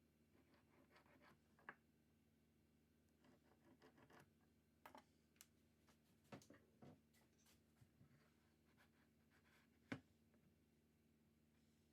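Near silence: faint room tone with a steady low hum and scattered small clicks, light knocks and scraping. The sharpest click comes about ten seconds in.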